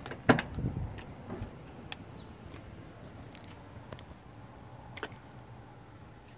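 A truck cab door latch clicks open sharply and the door swings open. A few lighter clicks and knocks follow, the clearest about five seconds in.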